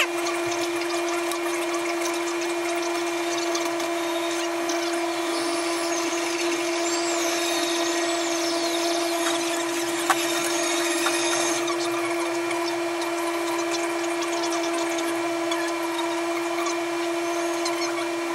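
A small electric motor running steadily with a constant humming tone, alongside light scratching and rustling of wires being handled and a single sharp click about halfway through.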